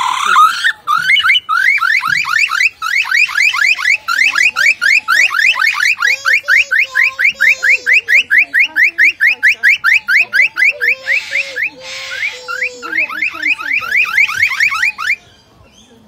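A lyrebird mimicking a car alarm: a fast, loud run of rising whoops, about five a second. It breaks off briefly about eleven seconds in and stops about a second before the end.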